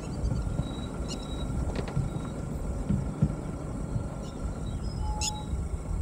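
Low, uneven rumble of a vehicle on the move, with a few short high chirps over it.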